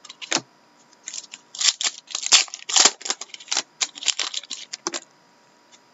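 Trading cards being flipped and slid against one another in the hands: an irregular run of quick flicks and scrapes that stops about five seconds in.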